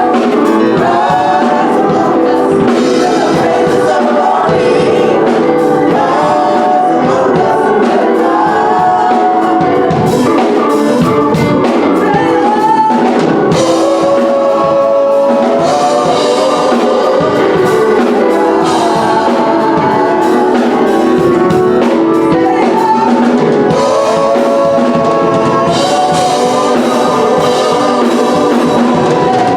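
Gospel choir singing with drums and instrumental backing.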